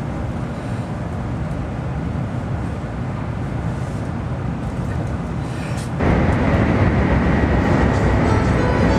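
Shinkansen train running at speed, heard from inside the passenger car: a steady low rumble and rushing noise that abruptly becomes louder about six seconds in.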